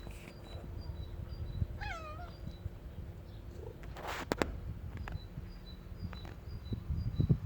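A kitten gives one short meow, rising and then falling, about two seconds in. About four seconds in there is a brief rustle with a couple of sharp clicks.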